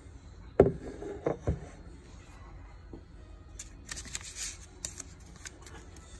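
A carved wooden box knocking on a stone countertop as it is set down, three knocks about half a second to a second and a half in, the first the loudest. Then a few seconds of crisp, light rustling and small clicks as the paper card tied to it is handled.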